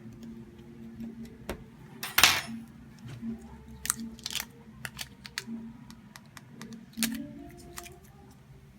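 Scattered sharp clicks and taps of small hard objects being handled, with a short loud rustling scrape about two seconds in.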